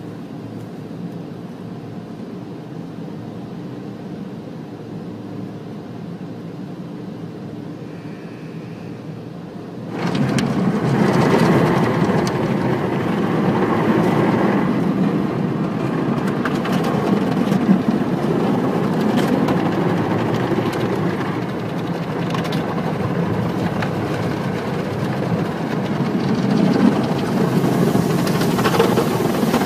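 Automatic car wash machinery running: a steady low hum, then about ten seconds in a much louder rushing, churning noise starts suddenly and keeps going.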